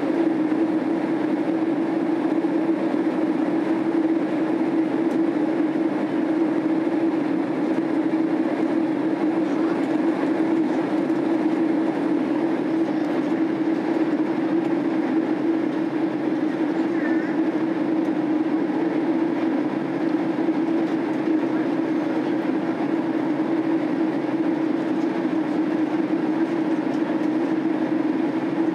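Steady in-flight cabin noise of a Boeing 767-300 airliner: an even drone of jet engines and airflow with a strong, constant low hum.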